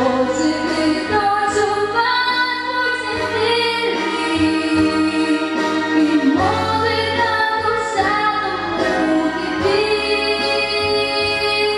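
A female vocalist singing long, held notes with slight vibrato over musical accompaniment.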